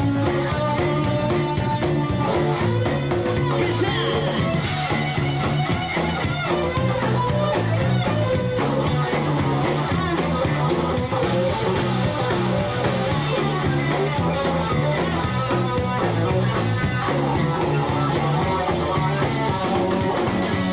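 Rock band playing live with electric guitar, a repeating bass line and drums keeping a steady beat.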